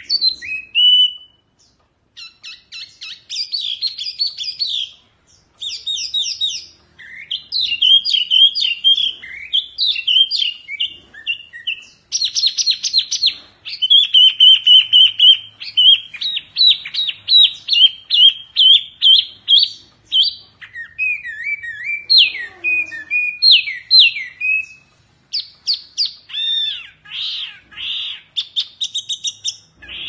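Caged wambi (hwa mei mini) songbird singing a long, varied song of fast trills, runs of quick repeated notes and sliding whistles, with a few short pauses.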